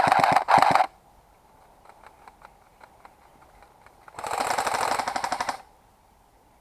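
Airsoft gun firing on full auto in rapid bursts: one burst ends just under a second in, a few single shots follow faintly, and another burst of about a second and a half comes about four seconds in.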